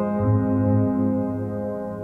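Background music: soft ambient keyboard chords held and slowly fading, with the low note changing about a fifth of a second in.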